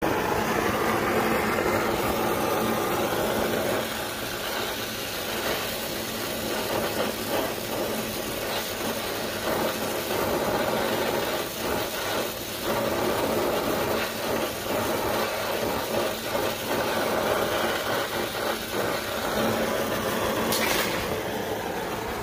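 Brazing torch flame burning steadily while the copper liquid line is brazed (sweated) into the TX valve, a continuous rushing sound. There are a few faint knocks around the middle and a brief hiss near the end.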